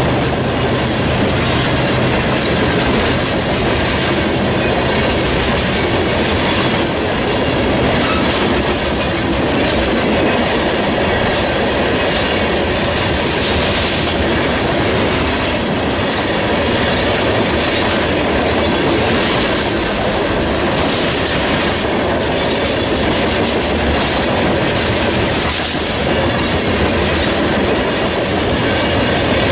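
Freight train cars rolling past, a steady loud rumble with the wheels clicking over the rails.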